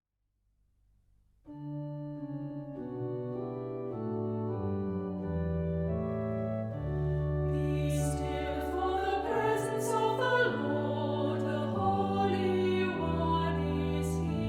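Organ music: it comes in about a second and a half in and plays slow, sustained chords.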